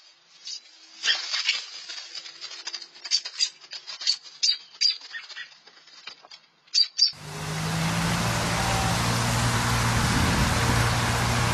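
Short, high bird chirps and rustling at a nest, coming in quick, scattered bursts. About seven seconds in, the sound cuts to a loud, steady hiss with a low hum underneath.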